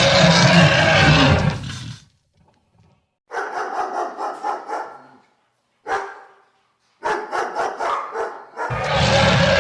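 Sound-designed monster vocalizations: a loud, rough roar that cuts off about two seconds in, then two runs of quick pulsing bark-like calls, about five a second, with a single short call between them. A second loud roar starts near the end.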